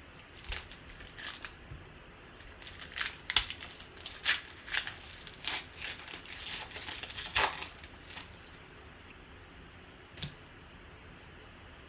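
Trading cards and their pack wrappers being handled close up: a quick series of short sliding, rustling and crinkling strokes for about eight seconds, then one more a couple of seconds later.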